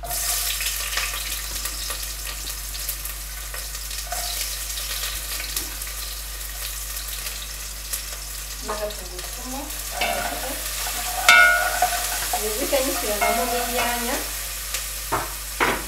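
Sliced red onions hitting a hot pot and sizzling as they start to fry, the sizzle starting suddenly at the drop. From about halfway through, a wooden spoon stirs them and scrapes the bottom of the pot, with a couple of sharp knocks near the end.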